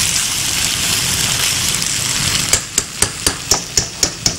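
Minced meat and macaroni sizzling in a frying pan. From about two and a half seconds in, a slotted spatula knocks sharply against the pan over and over, about four knocks a second, as the dish is stirred.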